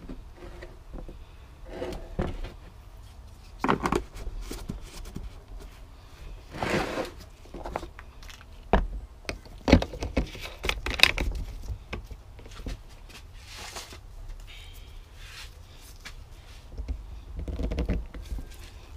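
Irregular plastic knocks, scrapes and rustles from handling a plastic gear-oil jug and a hand-pump bottle as the oil is poured in and the pump head is fitted and screwed on.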